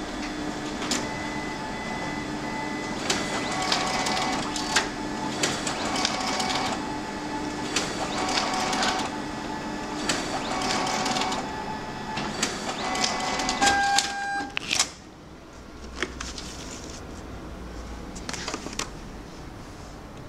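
Konica Minolta Bizhub C253 colour copier and finisher printing and delivering a sheet to the exit tray: a steady mechanical run with repeated clicks and short whines about every second or so. A cluster of loud clicks comes about fourteen seconds in, after which it runs quieter.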